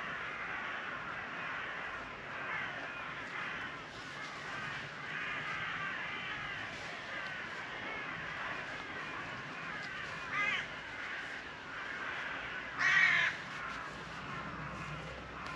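Woodland birds calling and singing over one another. Two louder single calls stand out, a short one about ten seconds in and a stronger one about thirteen seconds in.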